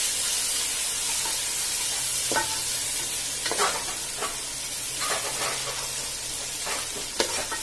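Sliced tomatoes, onions and herbs sizzling in hot oil in a pot while a slotted wooden spatula stirs them, scraping across the pan in a run of short strokes.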